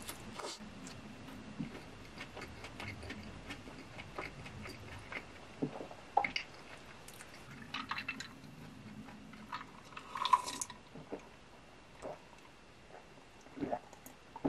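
Close-up chewing of a fast-food burger, with wet mouth clicks and squishes. A short, louder clatter comes about ten seconds in, and a sip from a glass of iced cola comes near the end.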